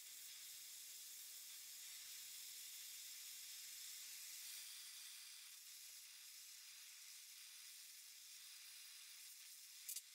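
Faint steady hiss of an oxy torch flame heating a steel knife guard. The flame hiss eases a little about halfway through, and there is a faint click near the end.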